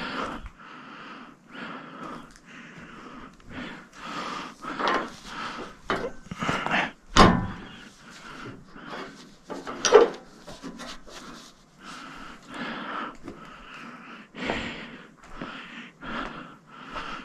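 A run of short scrapes and knocks from hand work on the Wood-Mizer sawmill's modified log clamp as pressure is taken off it, with breathing between the strokes. Two sharper knocks stand out, about seven and ten seconds in.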